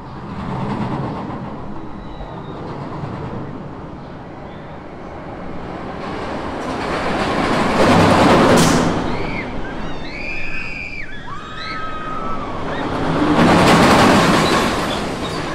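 Amusement ride car rumbling along its rails, the noise swelling loudly twice, with a few short high squeals in the middle.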